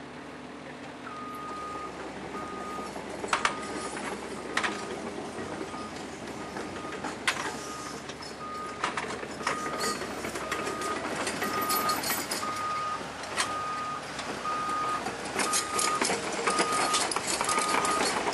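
Off-road 4WD ute crawling over boulders with its engine running under load, growing louder. A reversing beeper sounds about twice a second, starting about a second in. Several sharp knocks cut through.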